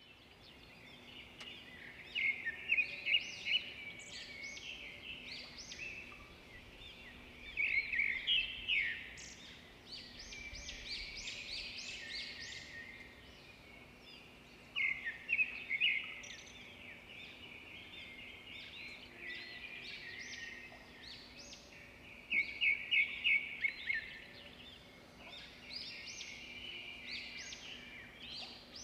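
Small songbirds chirping and twittering, with bursts of rapid trills that come and go every several seconds, over a faint steady low hum.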